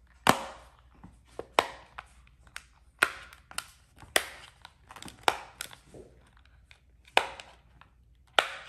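Solar-system dimple fidget toy having its silicone planet bubbles pressed and popped one after another: a sharp pop about every second, seven in all, with lighter clicks in between.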